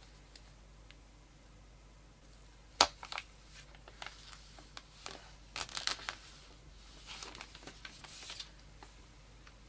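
Smartphone packaging being handled: a sharp click about three seconds in, then scattered taps and crinkling of packaging material that stop shortly before the end.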